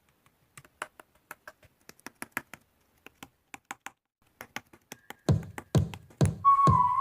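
A run of small, sharp, irregular clicks, about two or three a second. About five seconds in, much louder pop music with a heavy bass beat starts.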